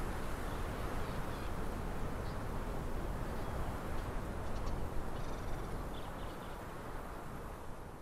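Steady wind rumbling on the microphone in open mountain country. Faint, short distant bird calls come through in the middle. The sound eases down near the end.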